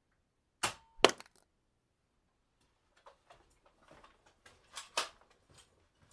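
Gun sound effect: two sharp shots about half a second apart, then a run of lighter clicks and clacks with one louder crack near the end.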